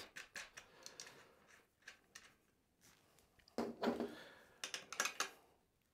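Faint clicks and clatter of an open-end wrench and bike parts being handled while the front-wheel axle nuts of a folding e-bike are snugged down, with two louder handling noises a little past halfway.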